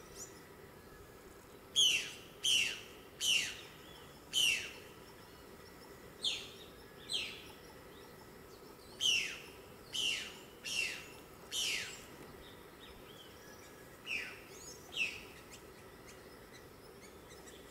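A bird calling: about a dozen short, sharp notes, each sliding steeply down in pitch, given in loose groups of two to four with pauses between the groups.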